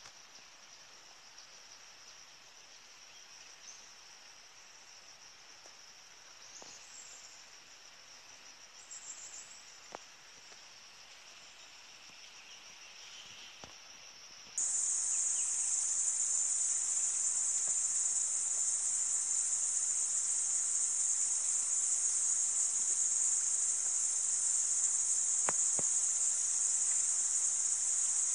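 Steady high-pitched drone of insects, faint at first and jumping abruptly much louder about halfway through, with a few faint clicks.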